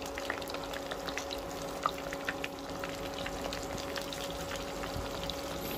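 Spice-and-flour-coated tofu frying in shallow oil in a small pan: a steady sizzle full of small pops and crackles, with one sharper tick about two seconds in.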